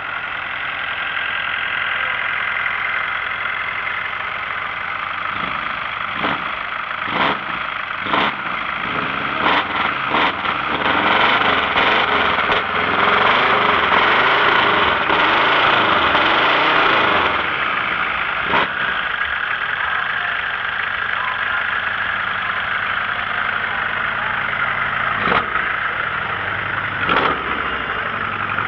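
A Rastrojero utility truck's engine running, revved up and down several times in the middle before settling back to idle, with several sharp pops over it.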